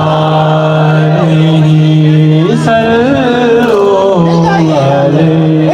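Qawwali music: a male voice sings, its line rising and falling over steady held accompaniment notes. The music cuts off suddenly at the very end.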